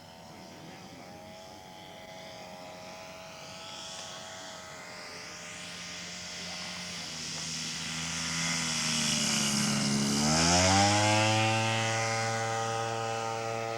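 Radio-controlled scale model monoplane's Zenoah G23 two-stroke gas engine running and getting louder as the plane comes in. About ten seconds in it revs sharply up and holds at high throttle, the power-up for the go part of a touch-and-go.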